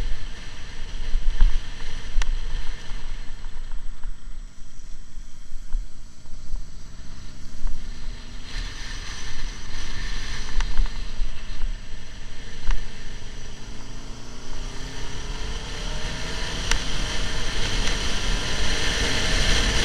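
Motorcycle on the move, with heavy wind rumble on the microphone over the engine. In the last few seconds the engine note climbs steadily as the bike accelerates.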